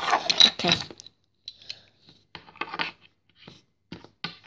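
Small plastic toy pieces being handled and set down on a wooden table, with scraping and rustling of packaging: a busy cluster of clicks and scrapes in the first second, then a few more short taps.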